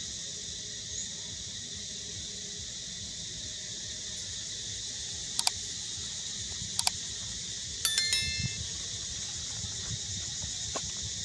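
Steady high drone of forest insects throughout. About halfway in come two pairs of sharp mouse-click sound effects, then about eight seconds in a louder cluster of clicks with a short bell-like chime, the sound of a subscribe-button animation.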